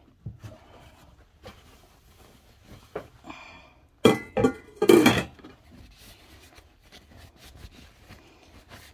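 Plates and utensils being handled and wiped with a paper towel: small clinks and light rubbing, with a louder clatter of plates knocking together about four seconds in and again about a second later.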